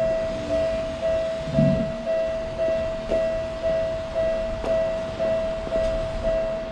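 Japanese railroad crossing warning bell ringing, a steady repeated ding at one pitch, about two strikes a second.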